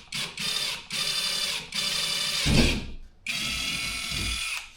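Power drill running in several short bursts, driving quarter-inch screws into a kayak's plastic hatch cover, with a steady motor whine in each burst. A louder low thump comes about two and a half seconds in.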